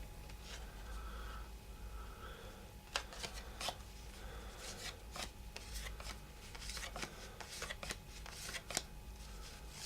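Cardboard baseball cards from a wax pack being slid and flipped by hand one after another: faint rustling with scattered short clicks as each card is moved.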